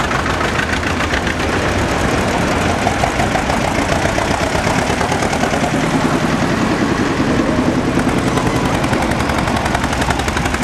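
Vintage tractor engines running as the tractors drive past in turn, a rapid, even chugging throughout.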